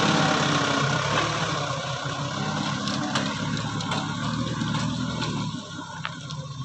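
A truck engine running steadily at low speed, growing gradually quieter and fading out near the end.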